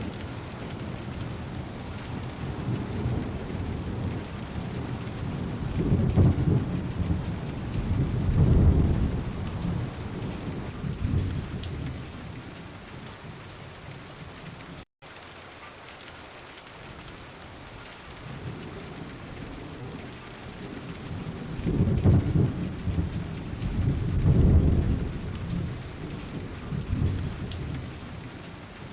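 Heavy rain beating steadily on a car window, with rolling thunder twice, each roll swelling in two peaks. The sound cuts out for an instant about halfway through.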